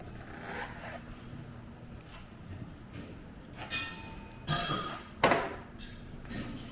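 Metal clinking and clanking as metal objects are handled: three short knocks in quick succession near the middle, one with a brief ringing tone, the last a sharp clank.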